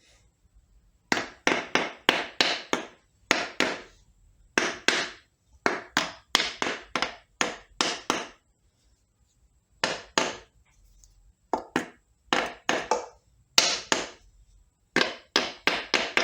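Repeated light hammer taps in quick runs of several strikes, each with a short ring, on a C6 automatic transmission's front pump to break it loose from the case after its bolts are out.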